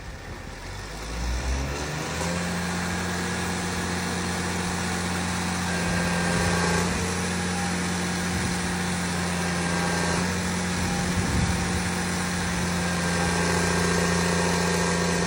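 New Holland T7040 tractor's six-cylinder turbodiesel engine, speeding up over the first couple of seconds and then running steadily at raised revs.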